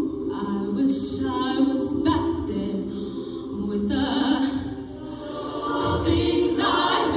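Large show choir singing in harmony, with held notes and chords.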